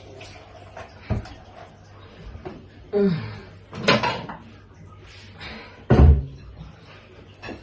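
Kitchen handling noises: a handful of separate knocks and clunks at irregular intervals, the loudest a heavy low thump about six seconds in.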